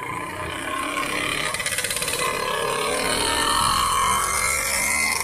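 Engine of a red bajaj auto-rickshaw running with a steady, rough putter, growing gradually louder.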